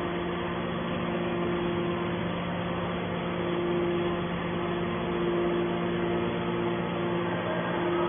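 Hydraulic scrap-metal baler's power unit running steadily, an electric motor and pump humming at a constant pitch, with no pressing stroke heard.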